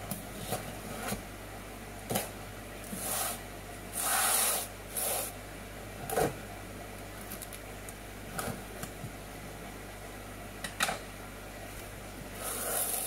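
Cardboard box being opened: scissors working through packing tape, the tape pulled away and the cardboard flaps rubbing and scraping, in a string of short scratchy bursts with a longer, louder one about four seconds in.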